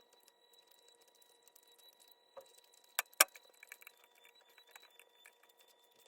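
Scattered small clicks and ticks, with two sharp clicks a fraction of a second apart about three seconds in.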